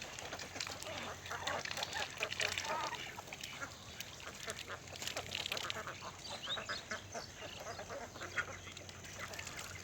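A flock of domestic ducks quacking, many short calls overlapping in a continuous chatter.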